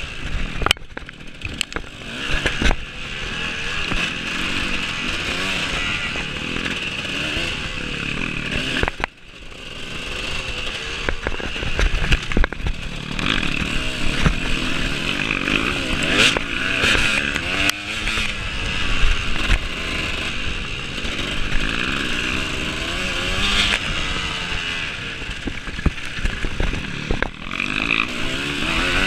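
Off-road racing motorcycle engine revving up and down under hard riding, the pitch rising and falling with throttle and gear changes. The engine note drops away sharply about nine seconds in, then builds again, with occasional short knocks.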